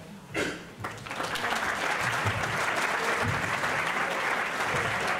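An audience applauding, the clapping building over the first second or two and then holding steady until it cuts off abruptly.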